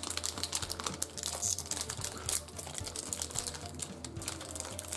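Foil trading-card booster pack wrapper crinkling and crackling with dense, irregular clicks as it is handled and pulled at to open it.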